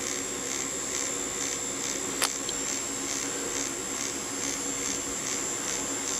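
Small fischertechnik electric motor driving a monorail carriage at full power, a steady whir with a high whine and a faint pulse about twice a second. A single click a little after two seconds in.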